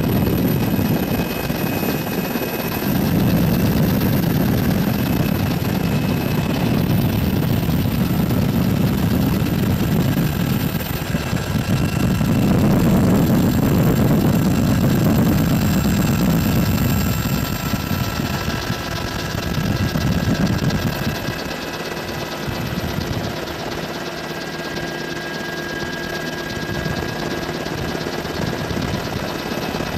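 Helicopter in flight heard from inside the cabin: a steady noise of engine and rotor with thin, high whining tones over it. The low rumble swells and eases, and drops off about two-thirds of the way through.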